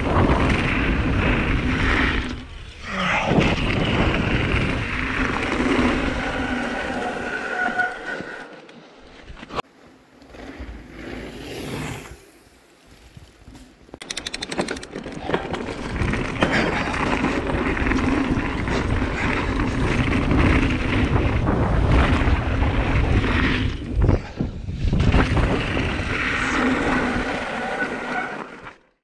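Mountain bike riding fast down a rocky dirt trail: tyres crunching and rolling over stones, with the bike rattling and wind rushing over the helmet camera. It goes quieter with scattered clicks for a few seconds in the middle, then picks up again and cuts off suddenly near the end.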